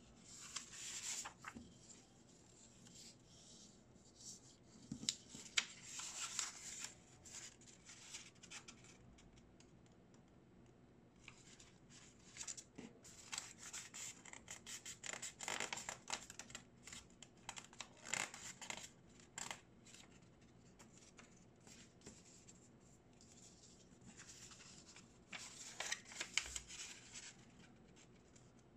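A square sheet of origami paper being handled and folded by hand: rustling, sliding and crisp creasing sounds in several bursts, with quiet gaps between.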